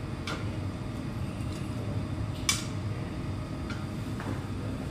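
A metal strainer ladle clinks a few times against a steel stockpot and a ceramic bowl while lamb offal is ladled out, the sharpest clink about halfway through. A steady low hum runs underneath.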